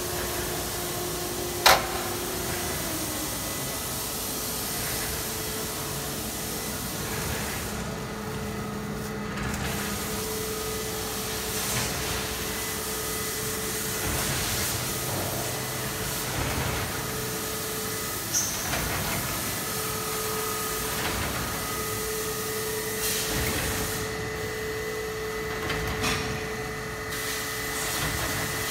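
Automatic plastic-film winder running: a steady machine hum with a held whining tone, and a sharp click about two seconds in and a smaller one about halfway through.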